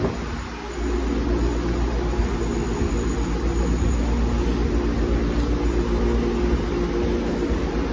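Steady hum and rush of air from ventilation fans and air conditioning running, with a low rumble underneath; it dips briefly just after the start.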